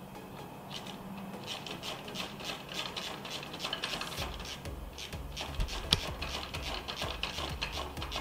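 Hand ratchet wrench clicking in quick, irregular runs as a long intake manifold bolt is backed out.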